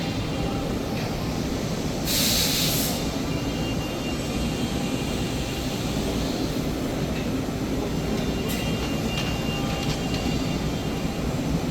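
FANUC Robodrill 5-axis machining centre and its automation cell running with a steady mechanical hum. About two seconds in comes a loud burst of hiss lasting about a second, and a short, fainter one later.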